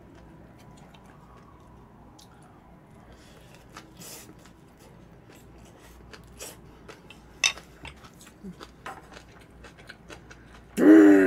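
Close-miked eating: soft chewing with scattered light clicks of a spoon against a bowl, growing busier about halfway through. A brief voice cuts in near the end.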